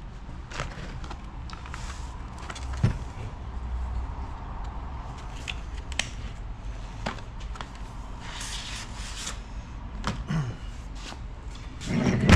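Scattered light clicks and knocks of chainsaw parts being handled on a padded workbench, with a louder knock near the end as the guide bar is picked up.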